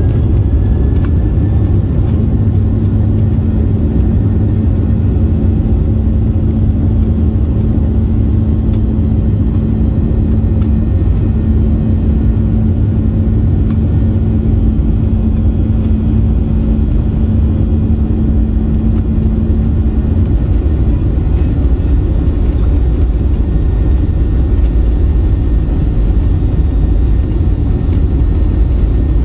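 Boeing 737-800's CFM56 turbofan engines running at takeoff thrust, heard from the cabin over the wing as the plane accelerates down the runway: a loud, steady low rumble with a high engine whine held at one pitch. A steady hum under it drops out about twenty seconds in.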